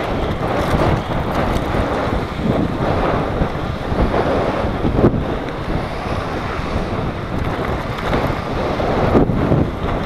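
Steady wind buffeting the microphone of a camera on a bicycle moving at speed, a continuous rushing noise.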